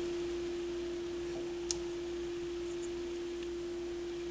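A steady single pure tone held at one pitch, with one small click about a second and a half in.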